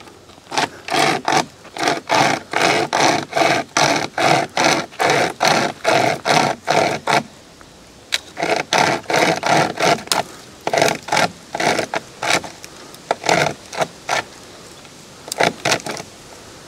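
Pocket chainsaw (a hand-pulled length of chainsaw chain) sawing back and forth through a tree branch about 3 cm thick, quick rasping strokes about three a second. The strokes stop briefly about seven seconds in, resume, and come more sparsely near the end.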